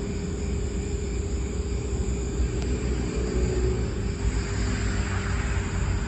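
Steady low rumble of background noise with a faint constant hum running through it.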